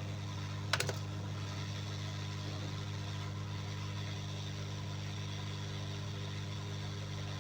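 A steady low machine hum runs throughout, with a quick cluster of three clicks about a second in.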